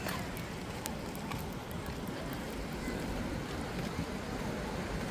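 Seaside ambience: a steady low rush of wind and surf, with the faint voices of people on the beach and a few light clicks in the first couple of seconds.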